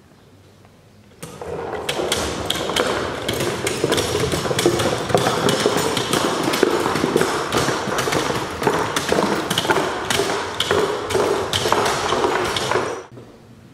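Hand-pushed mechanical walking sculpture clattering across a wooden floor, its shoe-shaped feet and metal linkages knocking on the boards at a few knocks a second. It starts about a second in and cuts off suddenly near the end.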